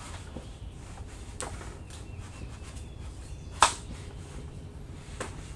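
Handling clicks as the Stihl FS90R trimmer's gearhead and plastic guard are worked onto the drive shaft tube: a couple of light clicks and one sharp click about three and a half seconds in, over a low steady hum.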